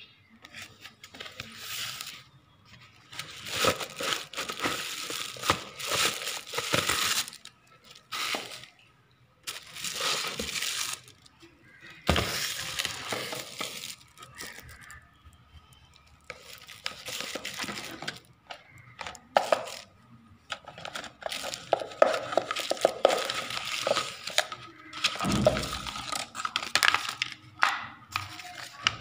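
Plastic wrapping crinkling and rustling in irregular bursts as hard plastic food-storage containers are unwrapped and handled, with occasional knocks of the containers being set down.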